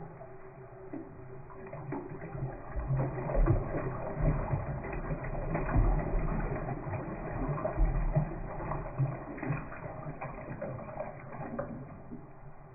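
Toilet flushing: water rushing and gurgling through the bowl, building about two seconds in and easing off near the end.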